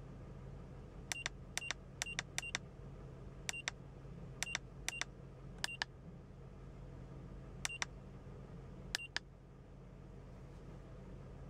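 About ten short electronic key beeps from a Launch CReader 6001 OBD-II scan tool as its buttons are pressed to scroll through menus, spaced unevenly and stopping about nine seconds in. Under them is the steady low hum of the car's engine idling at about 700 rpm.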